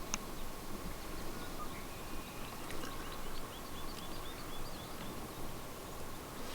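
A small songbird singing a quick series of short, rising chirps for about three seconds, over steady outdoor background noise.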